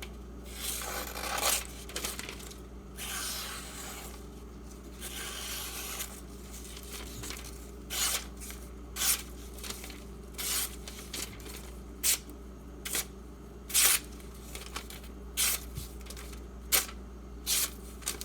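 Freshly sharpened knife edge slicing through thin paper to test its sharpness: a few longer rasping cuts in the first six seconds, then about nine short, quick slices.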